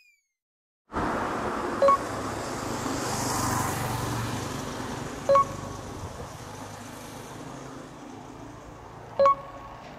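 Street ambience with the steady rush of road traffic, swelling as a vehicle passes about three seconds in, after a second of silence at the start. Three short, loud pitched pops stand out, a few seconds apart.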